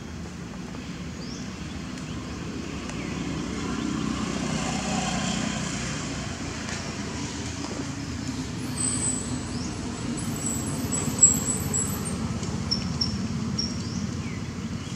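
Steady low rumble of road traffic, swelling as a vehicle passes about four to six seconds in. Rows of high, even chirps run over it in the second half, and a single sharp click comes about eleven seconds in.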